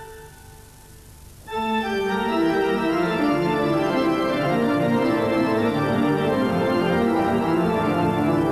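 Organ music: faint for the first second and a half, then held organ chords come in loudly and move through steady, stepping notes.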